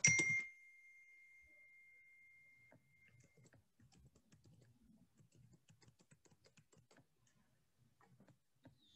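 A sharp clatter at the very start sets off a ringing tone that fades away over about three seconds, followed by faint, scattered clicking at a computer.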